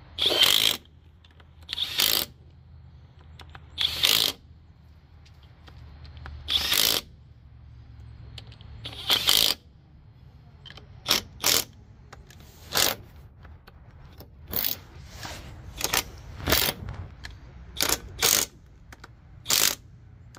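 Ratchet wrench tightening the hubcap bolts on a truck wheel hub: short bursts of ratcheting, about one every two seconds at first, then shorter, quicker ones in the second half.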